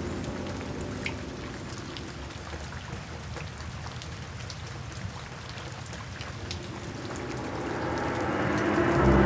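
Steady rain falling, a soft hiss dotted with the patter of individual drops. Gentle background music fades out in the first second or two and swells back in near the end.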